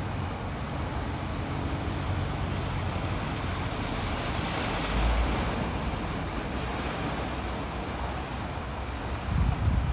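Steady rushing noise of wind and floodwater, with gusts buffeting the microphone twice, about halfway through and just before the end.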